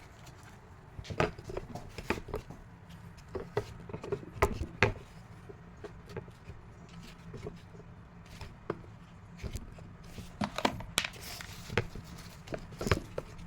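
Scattered clicks and light knocks from handling a battery tester and its leads as they are set up on a new car battery. The loudest knocks come a little before five seconds in and near the end.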